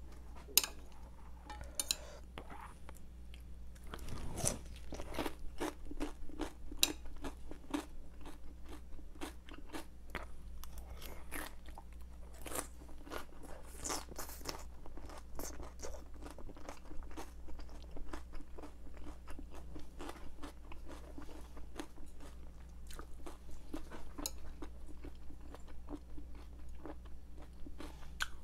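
Close-miked chewing of crisp raw vegetables, mainly raw cabbage: a continuous run of small wet crunches that starts about four seconds in. Before that, a couple of sharp clicks.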